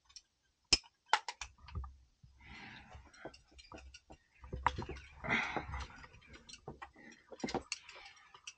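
A rock climber moving on granite: scattered clicks, taps and scuffs from hands, shoes and gear against the rock, mixed with stretches of rubbing, rustling noise.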